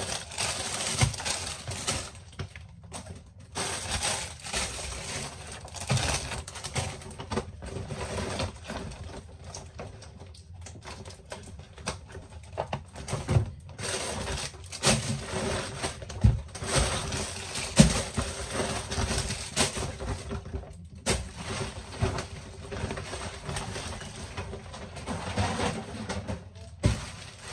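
Plastic bags and food packaging rustling, with irregular knocks and clatters as they are handled and dropped into a stainless steel sink, over background music.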